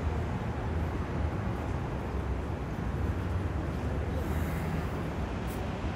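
Steady low rumble of city traffic, with a short high hiss about four seconds in and a faint click near the end.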